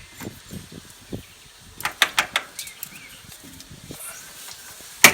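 Sharp metallic knocks and clanks of tools and parts being handled while taking apart a mower's wheel hub assembly: a quick cluster of about four knocks about two seconds in, and one loud knock at the very end.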